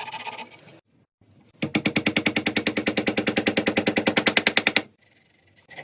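A power tool hammering or stroking rapidly, about fifteen strokes a second, for about three seconds, starting about one and a half seconds in after a short softer noise.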